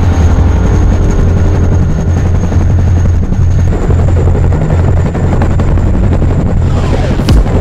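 Boeing CH-47 Chinook tandem-rotor helicopter running on the ground with both rotors turning, a steady low drone of rotors and engines.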